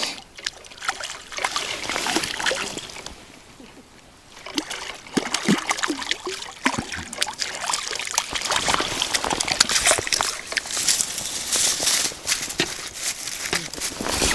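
Water splashing, sloshing and trickling in quick irregular strokes, with a lull about a third of the way in, then busier and louder.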